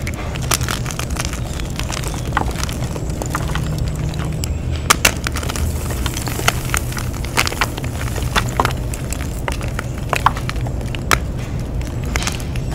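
Dyed gym chalk blocks being crushed, giving irregular sharp crunches and cracks, with a few louder snaps about five seconds in and again near eleven seconds, over a steady low hum.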